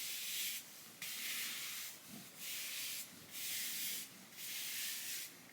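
Dry body brush scrubbing bare skin in repeated strokes, about one stroke a second, each a short bristly scratch.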